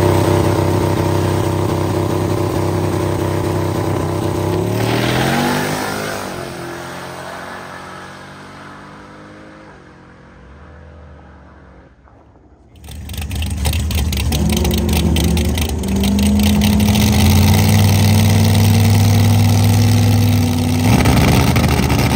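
A fourth-generation Chevrolet Camaro drag car's engine running at the starting line, then launching at full throttle with a rising pitch that fades away as it runs down the strip. After a cut, another drag car's engine runs loudly with a choppy rhythm, then revs up sharply as it launches near the end.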